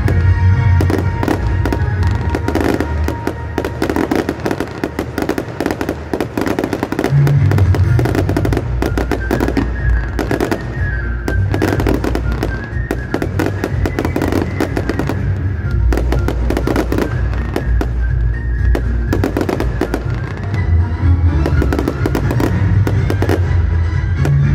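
Fireworks going off in rapid succession, many sharp bangs and crackles one after another, over a loud music soundtrack with heavy bass.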